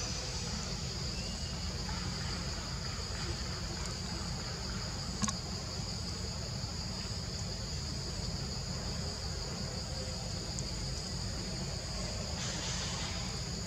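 Steady high-pitched drone of an insect chorus, unbroken throughout, over a low steady background rumble; a single faint click about five seconds in.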